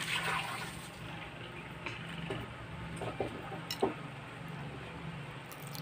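Quiet eating sounds: a few faint clicks of cutlery and fingers against ceramic plates and soft chewing, over a steady low hum.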